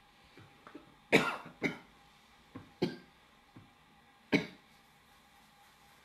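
A man coughing four times: two coughs close together about a second in, then single coughs near the middle and past four seconds.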